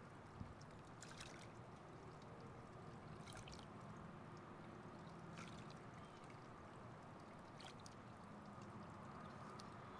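Faint pool water lapping, with a few soft splashes about every two seconds as a person works weights through the water.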